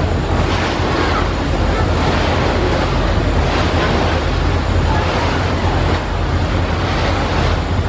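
Rushing, churning water of a large river passenger launch's bow wave and wake as it passes close by, over a steady low engine hum, with wind buffeting the microphone.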